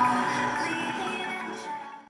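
Music with instruments, fading out steadily toward its end.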